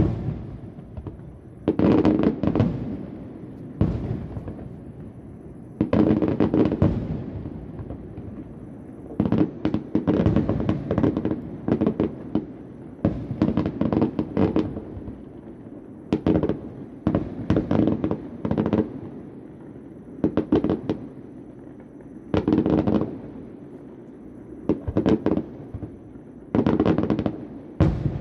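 Fireworks display heard from about a kilometre away: repeated shell bursts, one every second or two, each a sudden bang with a rumbling tail, mixed with quick clusters of crackling reports.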